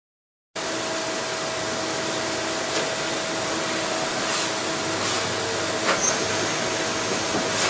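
Hardinge T42 CNC lathe running: a steady, even hiss with faint steady hum tones and a few light clicks, cutting in abruptly about half a second in.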